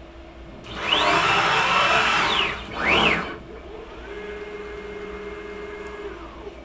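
Stepper-driven axes of a hobby CNC router (Beaver HDZero frame) moving the ATC spindle during an automatic tool change. A loud fast traverse whines up in pitch, holds, and falls as it slows. A short second move rises and falls near the middle. Then a quieter, steady whine runs for about two seconds as the spindle lowers slowly onto a tool holder in the rack.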